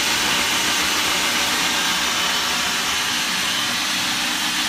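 Food processor running steadily with a low motor hum, puréeing barbecue sauce until smooth.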